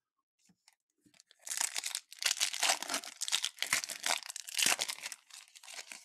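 Wrapper of a Topps Chrome Update trading-card pack being torn open and crinkled by hand, starting about a second and a half in.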